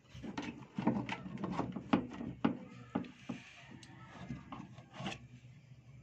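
Irregular clicks, knocks and rubbing of hands working on a washing machine's drive belt and plastic base, taking the belt off; dense for about three seconds, then a few single knocks.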